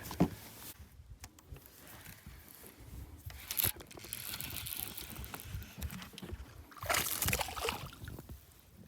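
Small water sounds against a boat's hull, with scattered light clicks and knocks, and a short louder rustling burst about seven seconds in.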